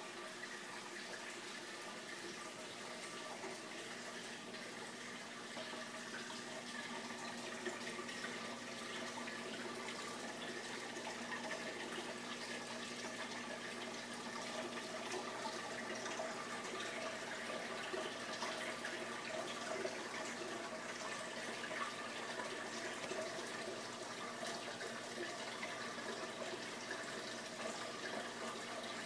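Steady running and splashing water of an aquarium's circulation, with a faint steady hum from its pump.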